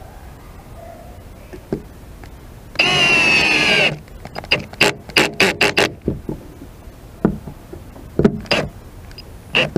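Cordless drill-driver driving a screw through a metal hinge: the motor runs steadily for about a second, then comes in a quick string of short bursts as the screw is snugged down, with a few more short bursts near the end.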